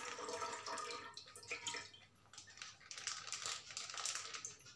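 Milk pouring from a plastic packet into a steel saucepan, a thin stream splashing into the milk already in the pan. The pour thins out about two seconds in, leaving small drips and the crinkle of the packet being squeezed.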